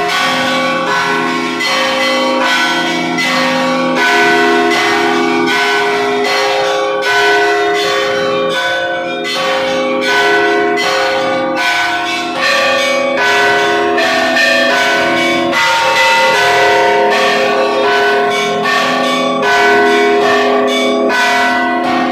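Russian Orthodox church bells rung from a bell tower: several bells of different pitches struck in a quick, continuous rhythmic pattern, the higher bells struck rapidly over the longer ringing of the deeper bells.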